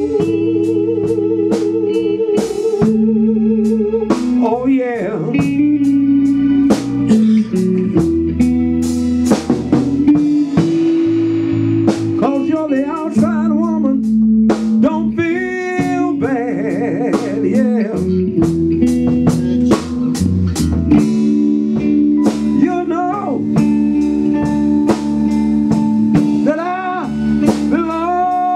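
Live band playing an instrumental break of a blues-flavoured song: a lead guitar line with bending notes over held chords and a steady drum beat.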